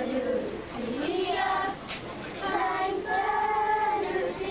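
A group of children singing together, a Lucia procession song in slow, long held notes, with a short breath pause about two seconds in.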